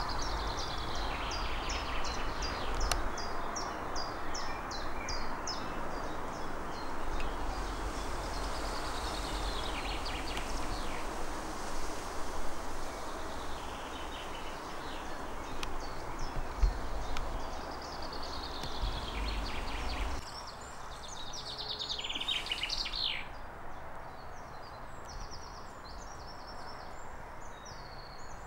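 Songbirds singing in a forest, each song a short run of quick falling high notes, repeated several times over a steady rustling background. The rustle drops noticeably about two-thirds of the way through.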